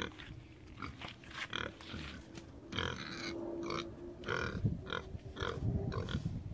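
Pigs grunting in short, irregular bursts.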